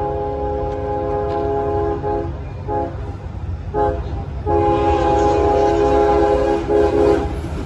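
Lead locomotive CSX 5202's horn sounding as the train approaches a grade crossing: a long blast ends about two seconds in, two short toots follow, and a second long blast starts halfway through and stops just before the end. Under the horn is the steady low rumble of the approaching freight train.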